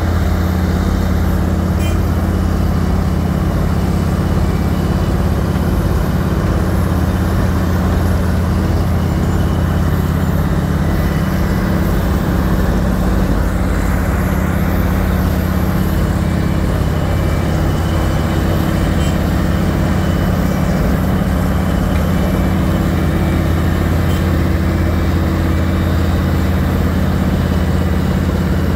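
Wirtgen W1900 cold milling machine at work: its diesel engine holds a loud, steady drone under load, mixed with a rough grinding noise from the milling drum and conveyor cutting and carrying asphalt.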